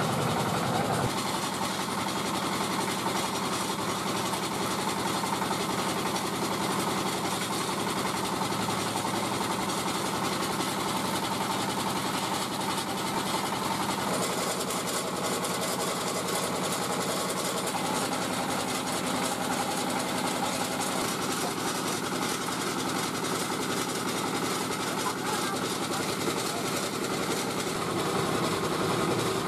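Puffed-rice stick extruder (bỏng gạo machine) running steadily, its motor driving the machine as a continuous rod of puffed rice is pushed out of the nozzle.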